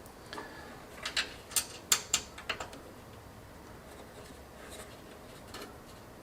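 Small metal clicks and taps as thumbscrews are handled and set into a PC case's expansion-slot bracket to hold a graphics card: about six sharp clicks in the first couple of seconds, then two faint ones later.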